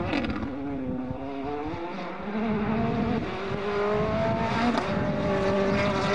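Mini WRC rally car's turbocharged four-cylinder engine driven hard past on a gravel road, its revs dipping briefly, then climbing in steps through the gears and holding high.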